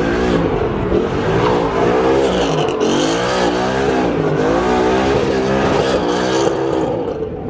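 A car engine revved hard, its pitch swinging up and down again and again, as the car spins its tyres in a burnout. A steady hiss of tyre noise runs beneath it.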